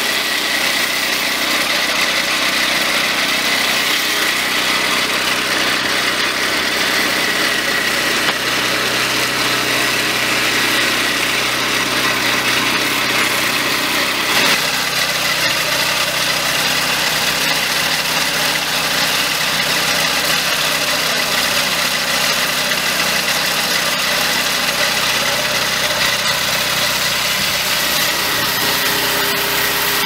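Petrol engine of a Turbo swing-blade portable sawmill running steadily at constant speed, with a thin high whine over it. The sound changes abruptly about halfway through.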